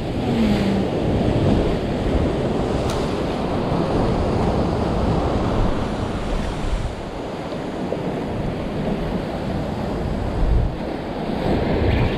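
Ocean swell surging and breaking against the rock ledge below in a steady wash of surf, with wind buffeting the microphone.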